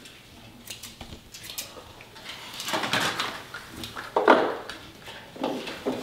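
Light metallic clinks and rattles with rustling, as the wire bars of a large metal bird cage are handled. A few sharp clicks come in the first couple of seconds, then several short clattering bursts.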